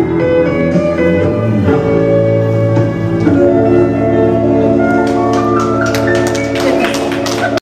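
Recorded dance music for line dancing: held notes over a steady bass line, with sharp percussive strikes that grow denser in the last two seconds. It cuts off suddenly at the end.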